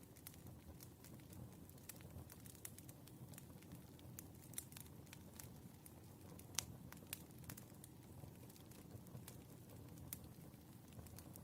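Firewood burning with a soft steady rumble and scattered crackles and pops, the sharpest pop about six and a half seconds in.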